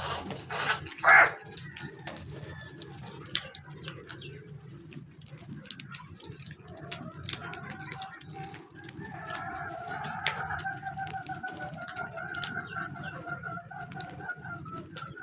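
Birds calling, with one loud call about a second in and scattered short clicks and taps throughout. A steady, slightly wavering two-pitch tone runs from about six and a half seconds on.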